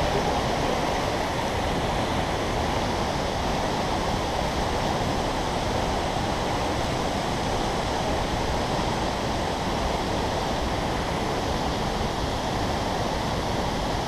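Waterfall and the stream below it rushing steadily, an even wash of water noise.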